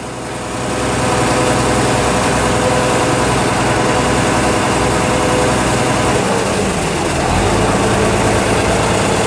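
River taxi boat's engine running steadily under way, with the hiss and rush of the churning wake and choppy water. The engine note shifts slightly lower about two-thirds of the way through.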